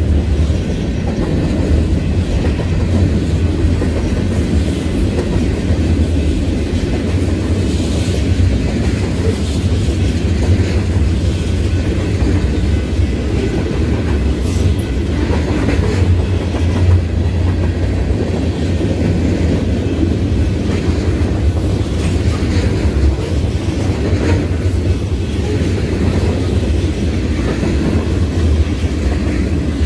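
Freight cars of a BNSF mixed freight train, covered hoppers and tank cars, rolling past: a steady, deep rolling noise of steel wheels on the rails with occasional faint clicks.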